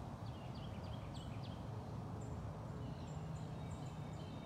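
Small birds chirping in the background: a quick run of short falling chirps in the first second or so, then fainter thin repeated notes. Under them runs a steady low rumble of outdoor background noise.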